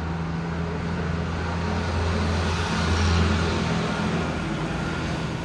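Low, steady engine hum of a motor vehicle that swells louder about three seconds in and then eases off.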